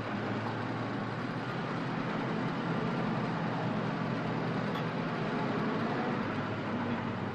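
Farm machinery running steadily: an even engine drone with a low hum under broad mechanical noise.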